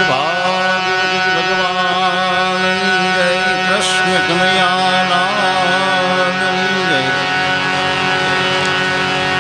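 Devotional singing: one voice sings a wavering, ornamented melody over a steady held harmonium chord. The voice stops about seven seconds in, and the harmonium chord holds on after it.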